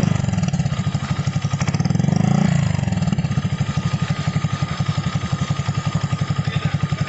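Honda Click 150i scooter's single-cylinder engine running through a Kawahara racing exhaust with a silencer insert, mostly idling with even pulses. About two seconds in there is a brief throttle blip that rises and drops back.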